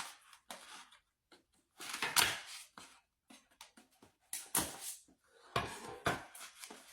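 Plastic snack packaging being cut with a knife and pulled open: irregular crinkling and rustling in separate bursts, the loudest about two seconds in, with a couple of dull thuds near the end.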